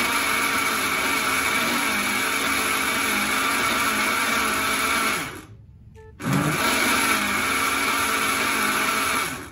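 Countertop blender running, blending a fruit and ice milkshake. It cuts out about five seconds in, starts again about a second later, and stops near the end.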